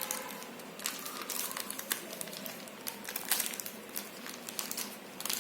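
Packaging crinkling and clicking in irregular bursts while the Mi Band 5 fitness tracker is taken out of its wrapping.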